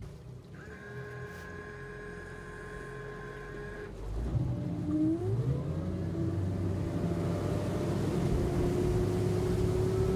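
Mercury 300 Verado outboard, a supercharged inline six, powering a fishing boat. About four seconds in it throttles up with a rising pitch, then runs steadily at cruising speed.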